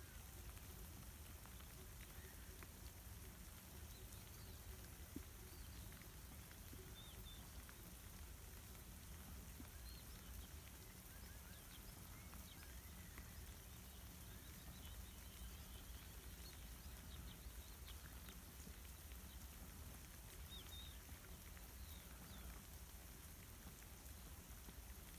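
Faint, steady light rain, with scattered faint small bird chirps.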